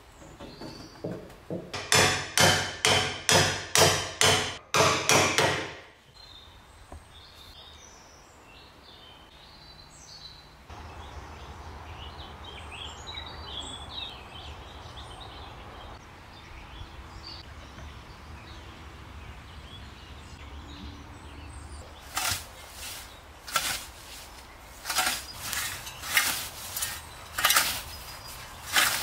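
About eight sharp metal blows, two a second, as the wedge is driven into the ring that holds a scythe blade to its wooden snath. Then birds chirp over a steady outdoor hiss. Near the end a scythe cuts through grass and weeds with repeated sharp swishes, about one a second.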